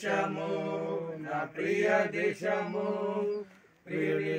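Voices singing a Telugu Christian hymn without accompaniment, holding long notes, with a short break about three and a half seconds in.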